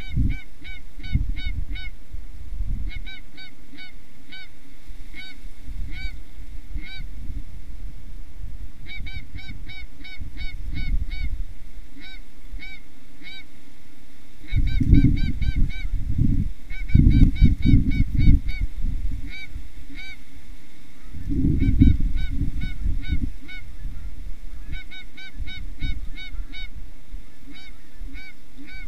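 Canada geese honking: short honks repeated in quick runs, with pauses between the runs. Under them a low rumble that grows louder about fifteen seconds in and again around twenty-two seconds.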